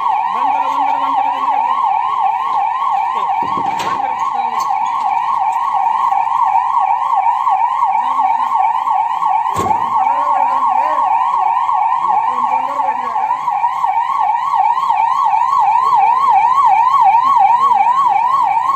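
Ambulance siren sounding a fast, continuous rising-and-falling yelp. A sharp knock comes about four seconds in and another near the middle.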